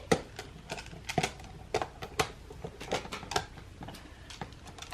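Plastic magnetic building tiles clicking and clacking together as they are handled and snapped into place, in a string of irregular sharp clicks.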